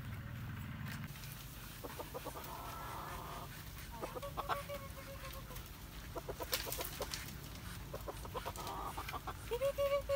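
Chickens clucking, with drawn-out hen calls about four seconds in and again near the end, and a few sharp clicks around six and a half seconds in.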